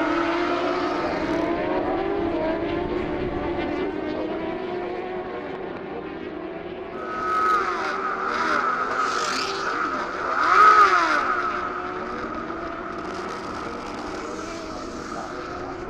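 Racing superbike engine heard from an onboard camera at high revs, its pitch rising and falling through gear changes. It gets louder twice, about seven and ten and a half seconds in, with quick rising and falling revs.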